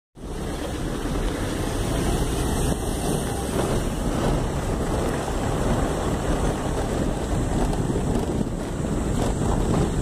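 Steady rush of wind and road noise from a moving car, with wind buffeting the microphone.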